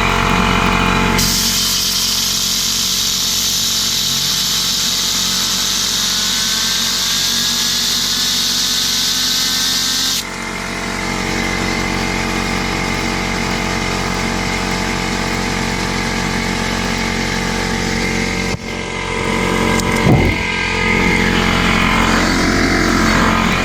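Air compressor motor running steadily. A loud hiss of compressed air starts about a second in and cuts off suddenly after about nine seconds, blowing a fidget spinner, with a faint whine rising in pitch as the spinner speeds up.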